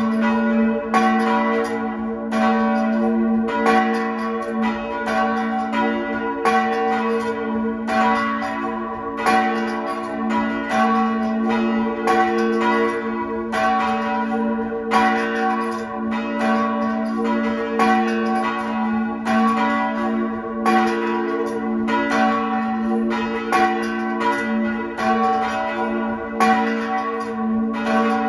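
Two swinging church bells pealing together: a 1867 Linderberg bell tuned to B4 (h1) and a larger 1896 Linderberg bell tuned to F♯4 (fiss1), heard close up inside the belfry. Strike follows strike at an uneven, interleaving rhythm of roughly one to two a second, each new stroke landing on the still-sounding hum of the last.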